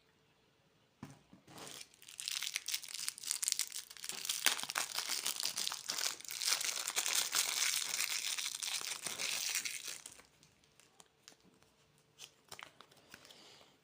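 A plastic candy wrapper being crinkled and torn open, a dense crackling for several seconds, then a few scattered crinkles near the end.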